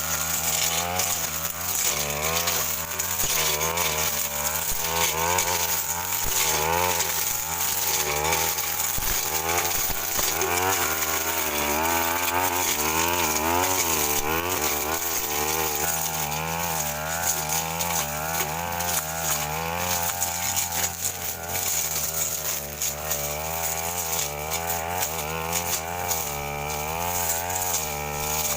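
Stihl FR 3001 backpack brush cutter running hard while cutting woody brush, its engine pitch rising and falling again and again as the blade meets and clears the growth.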